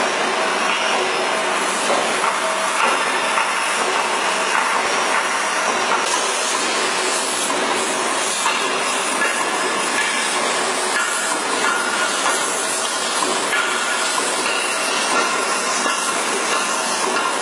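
Heavy-duty lathe turning a large steel cylinder: a constant hiss of machining and workshop noise with faint ringing tones that come and go.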